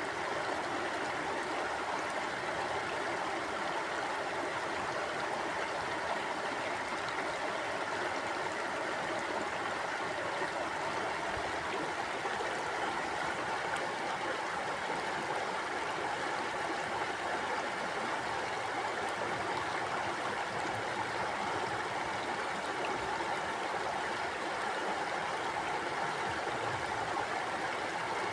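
Mountain river flowing steadily: an even rush of water over rocks.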